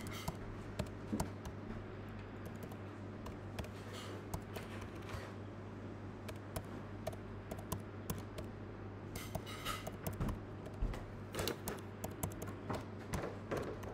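Typing numbers on a computer keyboard: short key clicks in irregular runs, busiest in the second half, over a steady low hum.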